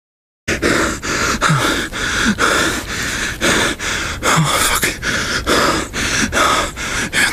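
A man's heavy, fast, panicked breathing close to the microphone, about two gasping breaths a second, with a few short moans in between. It starts suddenly after half a second of silence.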